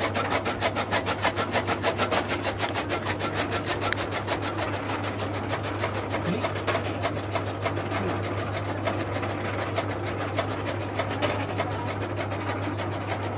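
Electric chaff cutter running: a steady motor hum with a rapid, even clatter of the flywheel blades chopping green fodder. The chopping is strongest in the first half and lighter later on.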